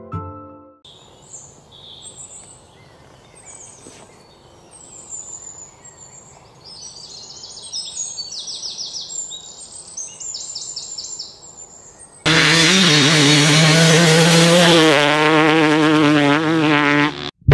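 Birds chirping in repeated short calls over quiet outdoor ambience. About twelve seconds in, a Yamaha YZ300 two-stroke dirt bike engine (a YZ250 with a 300cc kit) cuts in loud, ridden hard with its pitch rising and falling as the rider works the throttle, then cuts off suddenly.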